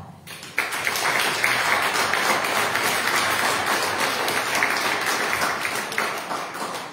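Applause from a room of people, the clapping starting sharply about half a second in and dying away near the end.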